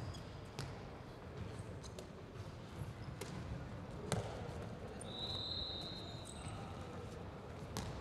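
A handball bouncing and being caught and thrown on a sports hall floor: a few sharp, irregularly spaced slaps and bounces that echo in the hall, the loudest about four seconds in. A brief high, steady tone lasts about a second, shortly after the middle.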